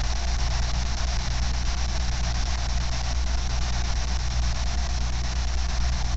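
Spirit box radio giving a steady hiss of static, with a low hum underneath.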